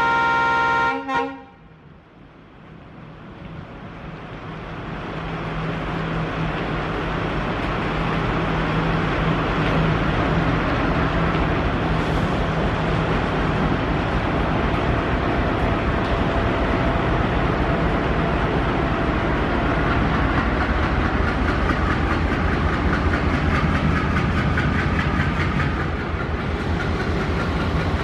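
ALCo WDG-3A diesel locomotive sounding its horn, which cuts off about a second in. Its engine then throttles up for departure, growing louder over several seconds into a steady heavy diesel running, with a deeper rumble near the end as the locomotive passes close by.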